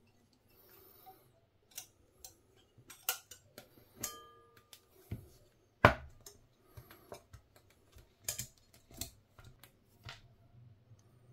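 Irregular small metallic clicks and taps as lure wire is handled and bent with hand tools, with a brief metallic ring about four seconds in and the sharpest click near six seconds.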